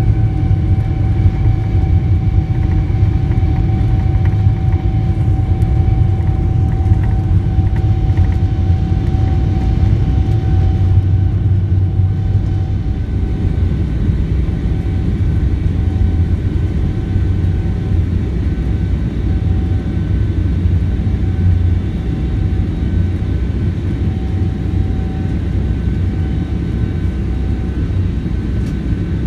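Inside the cabin of a Boeing 777-300ER, its GE90 engines at takeoff power during the end of the takeoff roll and the climb-out: a loud, steady rumble with a steady whine held through it.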